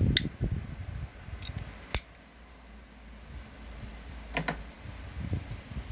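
A few scattered sharp clicks, one near the start, one about two seconds in and a quick pair past the middle, with soft low knocks and rumble in between.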